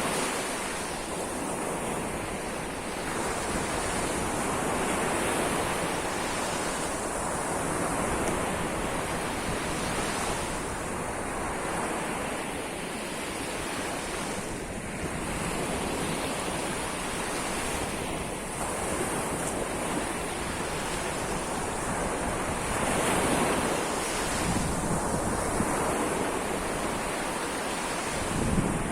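Sea waves washing onto the shore, the surf swelling and fading every few seconds, with wind rumbling on the phone's microphone.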